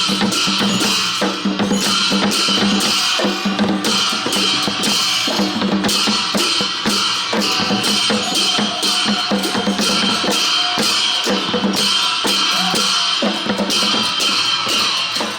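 Traditional Newar festival percussion: drums and clashing percussion playing a dense, steady beat for a procession.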